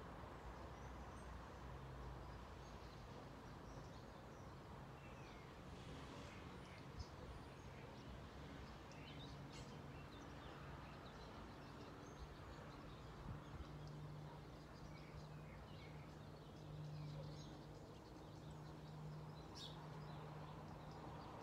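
Quiet garden ambience: faint, scattered bird chirps over a low, steady background hum.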